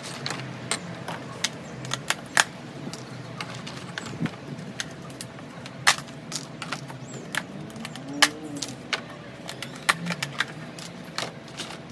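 Irregular clicks and clacks of black plastic takeout containers being set down and handled on a table, with light clinks of a metal utensil.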